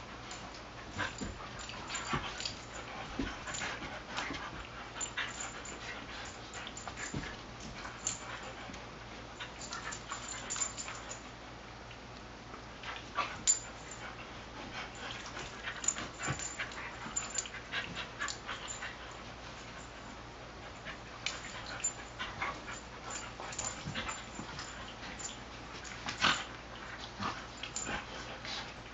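Two dogs play-fighting: a steady scatter of short, sharp dog noises and scuffles, with a few louder ones about 13, 16 and 26 seconds in.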